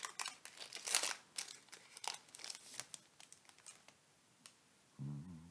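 Foil Pokémon booster pack (Shining Fates) crinkled and torn open by hand: a run of sharp crackles, loudest about a second in, fading out after about three seconds.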